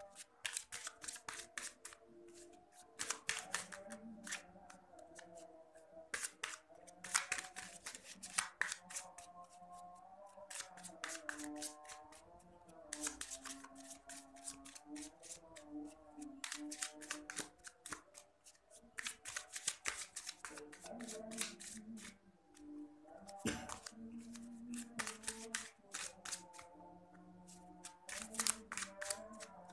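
A deck of tarot cards being shuffled by hand in repeated short bursts of rapid clicks, each a second or two long, over soft background music.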